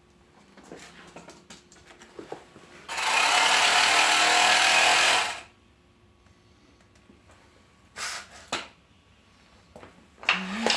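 A power tool run in one steady burst of about two and a half seconds, with scattered knocks and clicks of handling around it.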